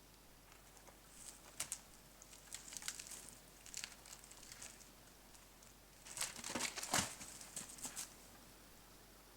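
Faint, intermittent rustling and crackling in several short bursts, the loudest cluster about six to eight seconds in.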